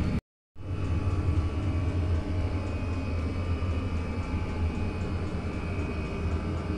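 Chinese diesel air heater running: a steady low combustion drone with faint fan whine, broken by a short gap of silence just after the start.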